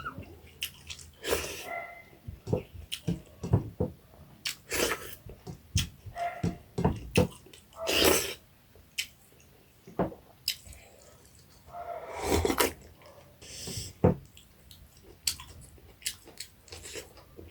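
Close-up mouth sounds of eating fried small rohu fish with rice: chewing and lip-smacking in quick, irregular clicks, with a couple of longer slurps about eight and twelve seconds in.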